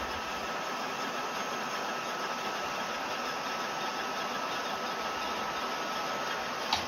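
Steady machine noise: an even hiss with a faint, high steady whine running through it, and one short click near the end.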